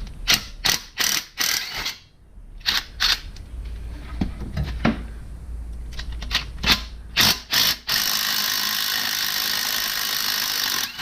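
Hand ratchet clicking in short bursts and metal tools knocking while exhaust manifold bolts are broken loose on an engine. About eight seconds in, a steady hiss starts and runs on.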